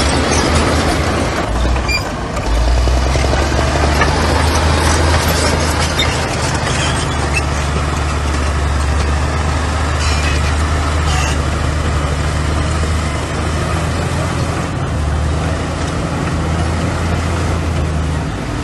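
Heavy diesel engine of earth-moving machinery running steadily with a deep drone; the level dips briefly about two seconds in.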